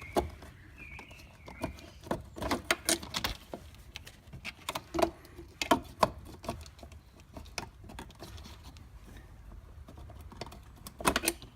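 Irregular small clicks and knocks of a car fog light bulb being fitted by hand into its housing behind the front bumper, in bunches with pauses between, as it is twisted and pushed at the socket.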